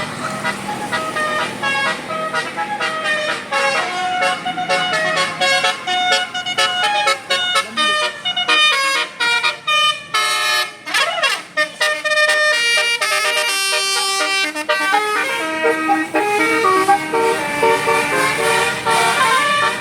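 Bus 'telolet basuri' multi-tone musical horn playing a fast tune of short stepped notes, several a second, with a sliding swoop of pitch about halfway through.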